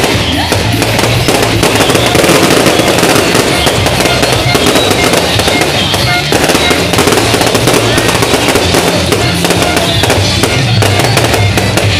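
Fireworks crackling and popping in a dense, continuous barrage of rapid bursts, with music playing underneath.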